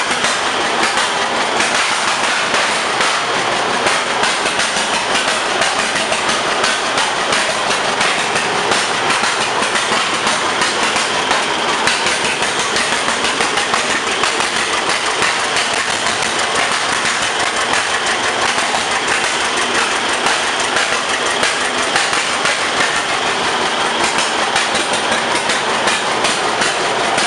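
1925 John Deere Spoker D's two-cylinder engine running steadily at idle, with a fast, even beat of firing pulses.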